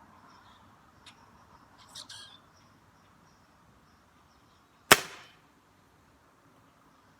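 A single pellet gun shot: one sharp crack about five seconds in, with a short tail. Faint bird chirps come a few seconds before it.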